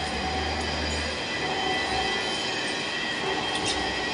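Large metal lathe running with a steady machine hiss and a high-pitched whine, and a short sharp click near the end.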